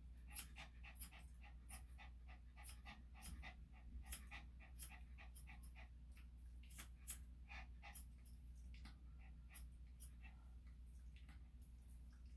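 Small Maltese-cross dog panting faintly, quick breaths at about two to three a second, over a steady low hum.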